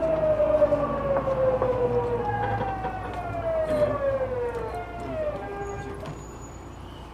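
Tokyu 9000 series electric train's VVVF inverter and traction motors whining under braking, heard from inside the car. The whine falls in pitch, jumps back up twice and falls again, then fades out a little past the middle as the train slows toward the station.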